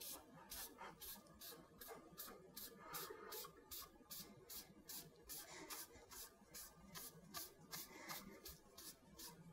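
Very faint rubbing of a wadded cloth rag wiping leather dye across a guitar's quilted maple top, under a faint regular hiss that pulses about three times a second.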